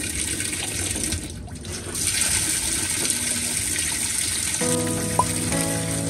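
Water pouring steadily into a washing machine's tub as it fills. Background music comes in near the end.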